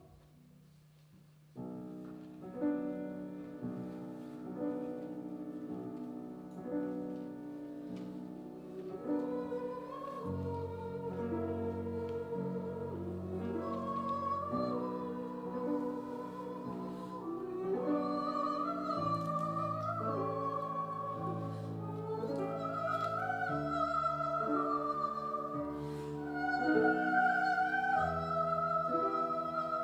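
A choir singing a slow classical romance with piano accompaniment. The piano starts about a second and a half in and plays alone at first; the voices come in with vibrato around nine seconds in and grow louder toward the end.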